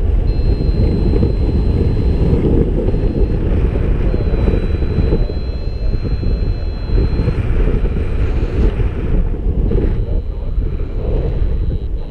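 Airflow buffeting the camera's microphone during a paraglider flight: a loud, steady low rush of wind noise. A thin high tone sounds on and off above it.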